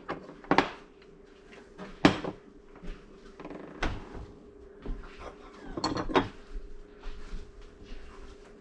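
Ceramic dishes and plates knocking and clinking as they are picked up and set down on a glass stovetop: a handful of separate sharp knocks, with a faint steady hum underneath.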